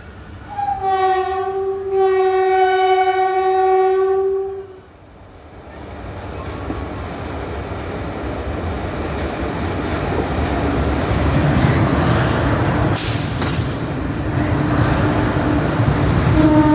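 Goods train's locomotive horn sounding a short blast and then a longer one, followed by the rising rumble and clatter of the approaching train. The horn sounds again near the end.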